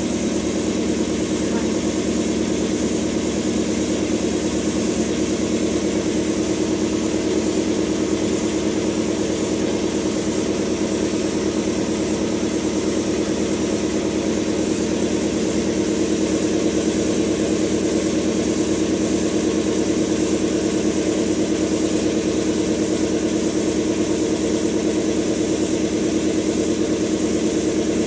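A 1988 Emglo twin-head electric air compressor runs steadily under load with a rapid piston beat. Its pump is still charging the tank toward its cut-out pressure of about 120 psi.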